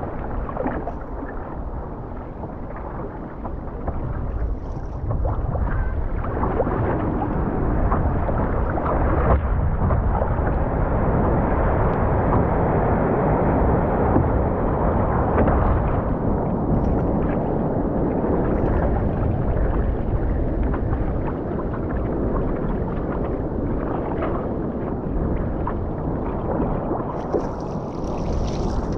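Wind buffeting the camera microphone over rushing, splashing ocean water around an OC1 outrigger canoe, louder through the middle stretch while a wave breaks behind the canoe.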